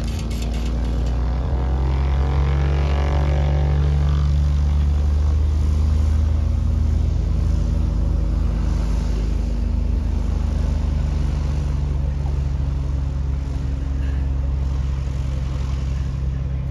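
A nearby engine runs steadily with a deep hum. A whine glides in the first few seconds and fades out by about four seconds in.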